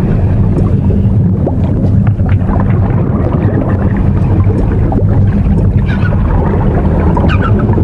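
Underwater recording: a steady low rumble of water noise, with scattered clicks and a few short high chirps from dolphins, the chirps mostly near the end.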